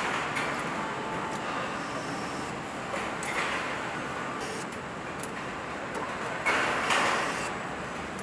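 Factory noise on a pickup truck assembly line: a steady din of machinery with scattered clicks and clanks. A louder rush of noise starts suddenly about six and a half seconds in and lasts about a second.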